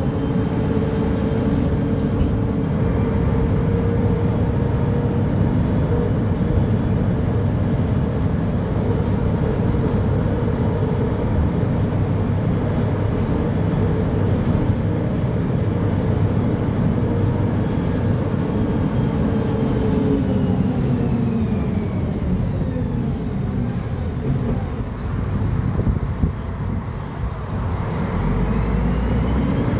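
Mercedes-Benz O500UDA bi-articulated bus engine and Voith automatic transmission running under way, with a steady whine. About two-thirds of the way in the pitch falls away as the bus slows, and near the end it rises again as the bus pulls away.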